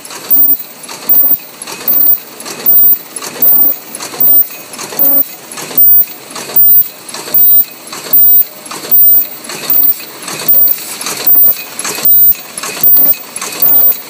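MB-12/22 paper cup forming machine running through its cycle: a loud, sharp burst repeats about every 0.8 seconds over the steady noise of the machine.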